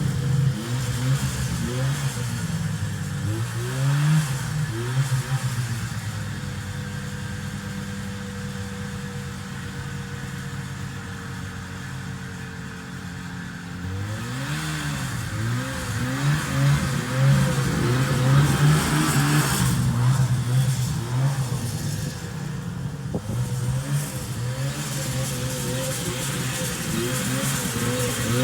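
1974 John Deere 600 snowmobile's two-stroke engine running, its pitch rising and falling again and again as the throttle is worked. It settles to a quieter, steadier note for several seconds in the middle, then revs up and down again from about halfway.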